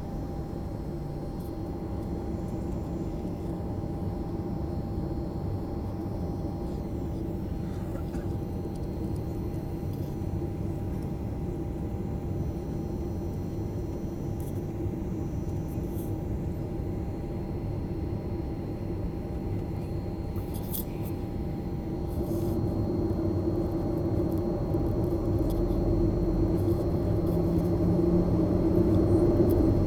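Steady low rumble of jet engines and airflow heard inside an airliner cabin, with a faint steady hum over it. It grows louder over the last several seconds.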